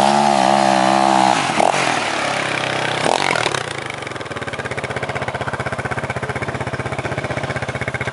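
Enduro motorcycle engine revving hard as the bike pulls away in second gear: the revs climb, hold high, then drop about a second and a half in, with another short rev near three seconds. From about four seconds the engine settles into steady running at low revs with an even beat.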